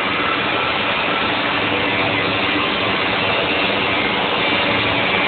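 CNC router spindle running steadily while milling the cavities of a Stratocaster-style guitar body: continuous cutting noise with a faint steady whine.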